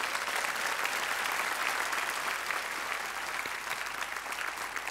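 Studio audience applauding, a steady dense clapping throughout.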